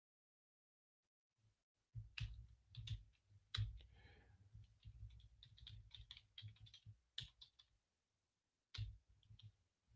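Typing on a computer keyboard: quick runs of key clicks with soft desk thuds, starting about two seconds in and going on for several seconds, then a short flurry of keystrokes near the end.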